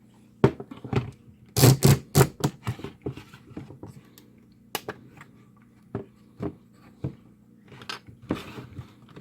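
Sharp clicks and knocks of hard plastic being handled: a quick cluster of several about one and a half to two and a half seconds in, then single clicks spread through the rest.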